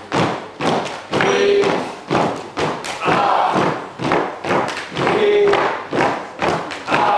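Dancers stamping their feet on a hollow wooden stage floor in a steady rhythm, about two heavy thuds a second.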